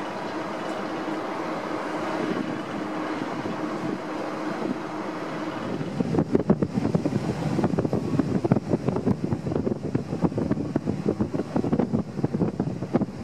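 Steady drone of a car ferry's machinery heard from the open deck, with a few steady tones in it. About six seconds in, heavy gusty wind buffeting on the microphone takes over and is the loudest sound.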